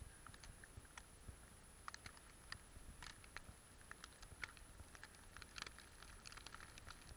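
Near silence with faint, irregular light ticks and crackles, several a second, over a steady faint high hiss.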